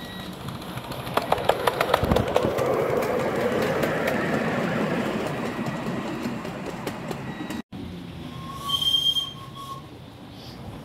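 A 7¼-inch gauge miniature steam train passing close by: wheels clicking over the rail joints as a rumble of the loco and wagons swells and fades away. After a sudden break, a short whistle sounds.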